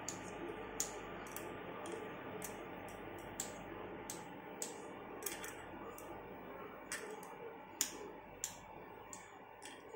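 Kitchen knife cutting soft paneer into cubes, its blade tapping the stone countertop in about fifteen light, unevenly spaced clicks.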